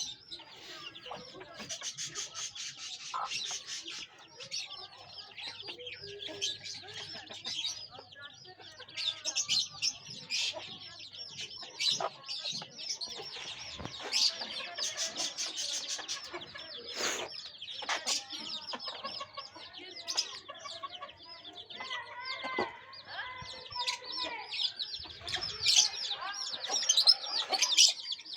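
Aseel chickens clucking over a constant chorus of many short, high-pitched chirps and peeps, with a run of lower clucking calls near the end.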